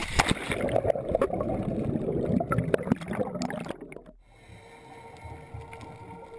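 Churning, gurgling water and bubbles with sharp ticks as an action camera plunges into the sea with a diver entering from a boat. The churn drops off abruptly about four seconds in, leaving a quieter underwater hiss with faint steady tones.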